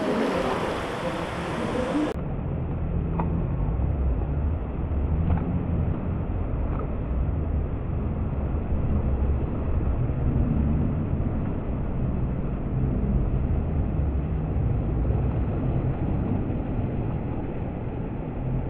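Pool water sloshing and splashing around a kayak and paddle as the kayaker capsizes and rolls back up, heard muffled and dull with no treble, with a few faint ticks.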